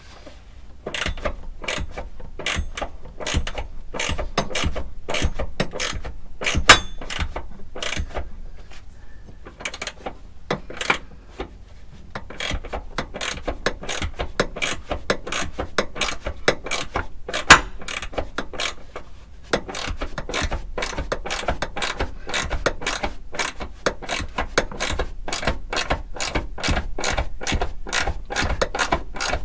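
Hand ratchet wrench clicking in quick runs, about three clicks a second, with short pauses between runs as a bolt is turned.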